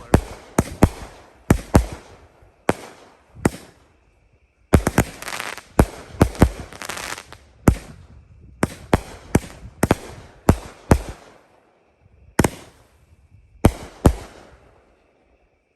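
Consumer firework cake firing a long string of sharp aerial bursts, with a dense run of rapid reports and crackle about five seconds in. Scattered single bursts follow and stop about a second before the end.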